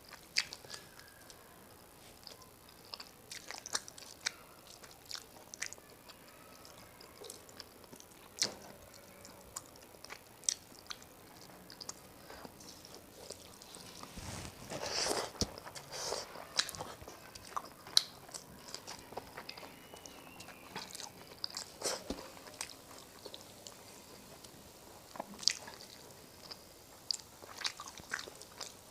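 A person chewing a mouthful of rice and rui fish curry close to the microphone, with scattered wet mouth clicks and smacks and a louder stretch of chewing about halfway through.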